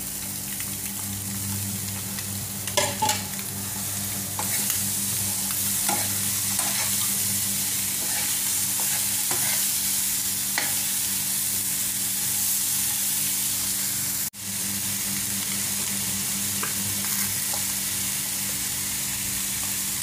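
Sliced vegetables and boiled eggs sizzling in hot oil in a frying pan, stirred with a metal spoon, with short scrapes and clinks of the spoon against the pan. A steady low hum runs underneath.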